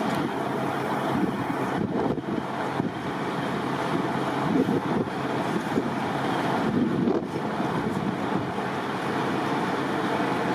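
Strong wind rushing over the microphone, a steady roar that swells and dips in gusts.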